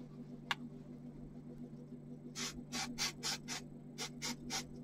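High-strength contact spray adhesive sprayed from an aerosol can in about ten short, quick bursts, in two runs, onto the back of a piece of felt. A single faint click comes about half a second in.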